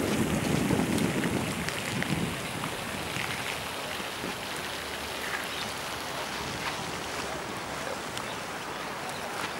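Wind buffeting the camera's microphone, a loud low rumble for the first two seconds, easing into a steady wind hiss.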